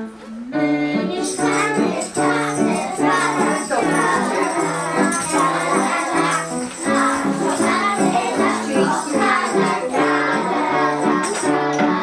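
Lively children's music with a rattling shaker keeping the beat, accompanying a dance.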